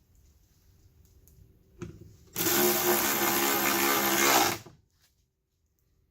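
Cordless drill-driver driving in a Torx screw: a short blip just before two seconds in, then one steady run of about two seconds before it stops.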